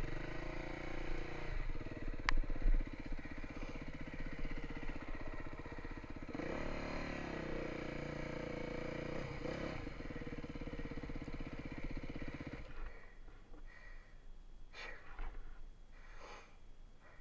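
Beta 350 four-stroke enduro motorcycle engine running at low speed on a rough trail, revving up briefly about six seconds in and again near ten seconds. About three-quarters of the way through the engine sound cuts off abruptly, leaving scattered knocks and rattles.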